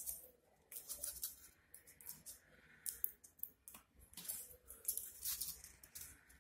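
Paper rustling and crinkling in irregular short bursts as hands handle and press paper leaves onto a paper-craft cabbage.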